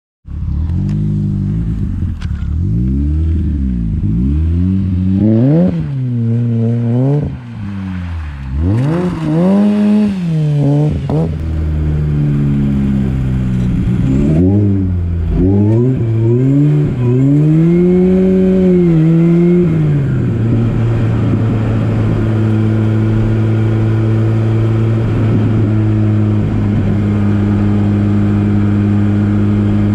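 Supercharged Opel Speedster engine revving up and down hard again and again for about twenty seconds, then running at a steady speed.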